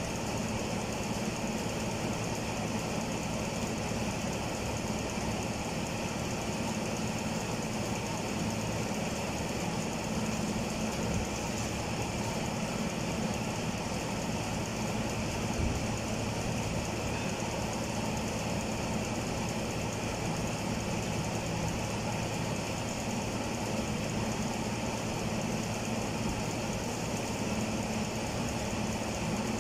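A machine running steadily: an even, unbroken drone with a low hum.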